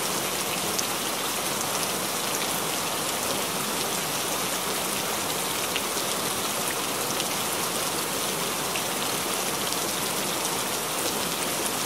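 Steady rain: a dense, even hiss of falling drops with scattered individual drop ticks.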